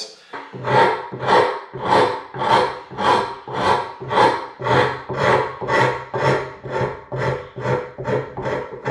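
A hand rasp scraping back and forth over a wooden saw handle in steady strokes, about two a second, cutting the old finish off its curves.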